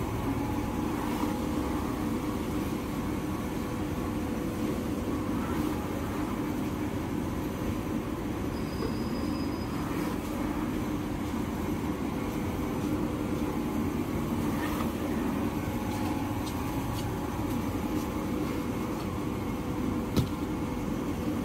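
Paper-converting machinery running with a steady drone and a couple of constant hum tones. A single sharp knock near the end.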